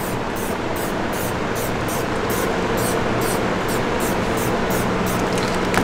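Aerosol spray-paint can hissing steadily as paint is sprayed through a cardboard stencil, over a steady low hum.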